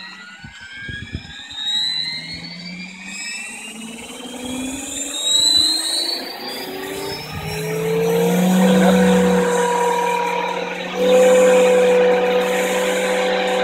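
Scale RC Eurocopter EC145 helicopter's electric drive spinning up on the ground: a whine rising steadily in pitch for the first several seconds, then settling into a steady hum, which gets louder again about eleven seconds in.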